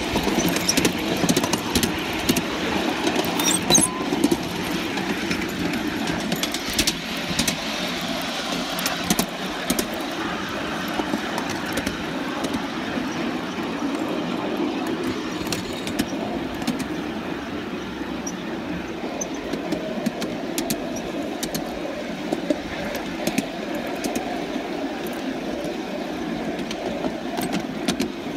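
Coal-fired 3½-inch gauge live-steam model locomotive running steadily on a raised track: the quick beat of its exhaust and running gear blended with the rattle of wheels and the riding truck on the rails, with scattered sharp clicks.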